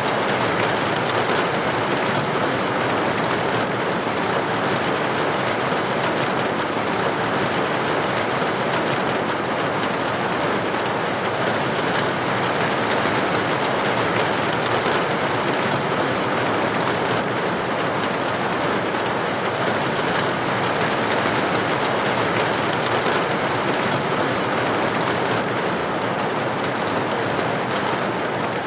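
Steady, unbroken rain falling against a window pane, an even hiss of drops.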